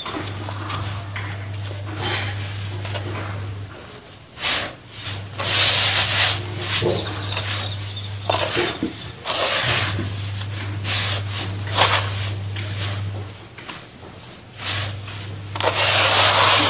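Hands crumbling and rubbing a dry mix of powdered charcoal, sand, ash and cement, letting handfuls fall back into a plastic tub as a gritty, crumbly pour. Several louder rushes of falling grains come and go, the longest near the end.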